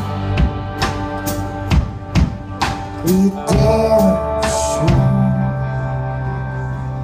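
Live band playing an instrumental passage: acoustic and electric guitars over a drum kit, with drum hits about twice a second until about five seconds in, then held ringing chords.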